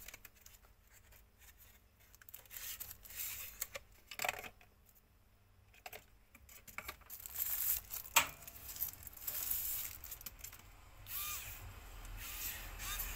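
Paper and plastic packaging rustling and tearing as a small electric screwdriver is slid out of its paper sleeve and unwrapped from its protective wrap. A few sharp clicks come in between, the loudest about eight seconds in.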